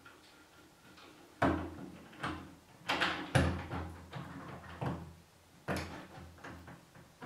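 Sorex Flex Max smart door handle and its square spindle being pushed into a door: about six irregular knocks and scrapes of the handle against the door, each followed by a short low hum of the door panel.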